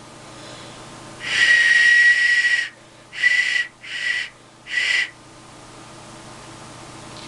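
Handmade clay duck whistle blown to test its freshly cut voice: one long steady high whistle, then three short toots at the same pitch, the middle one weaker.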